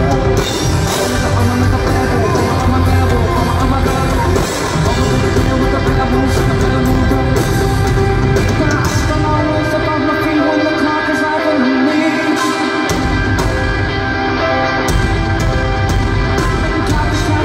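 Rock band playing live with singing, loud and full, as heard from the crowd. Partway through, the bass end drops out for about three seconds, then comes back in.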